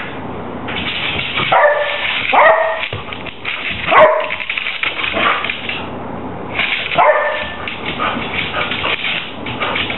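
Border collie giving four short, high-pitched barks, the loudest about four seconds in, with the patter and clicking of its paws on a hardwood floor.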